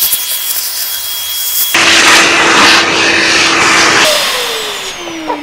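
Vacuum cleaner sucking dust out of a cast-iron electric motor end cap through its hose nozzle. The sucking gets louder about two seconds in. About four seconds in the vacuum is switched off and winds down, its motor whine falling steadily in pitch.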